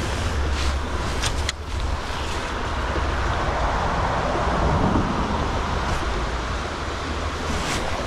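Shallow forest stream running, a steady rush of water, with wind rumbling on the microphone and a few sharp clicks.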